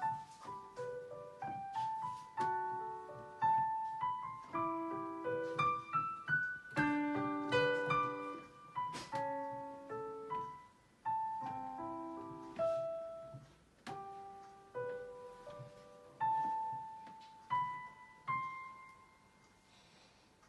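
Digital piano playing a slow grade 1 piece: a simple melody over lower accompanying notes. It slows and thins toward the end, closing on a held note that dies away.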